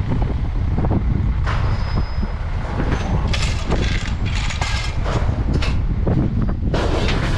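Steady low vehicle rumble with repeated short rattles and clanks over it, the sharpest ones about halfway through and near the end.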